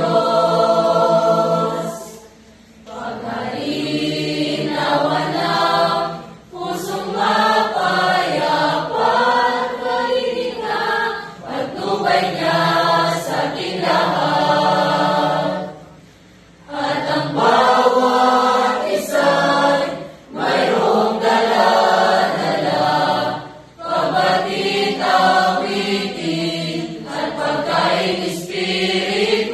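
Mixed choir of young men and women singing a hymn together, pausing briefly between phrases three times.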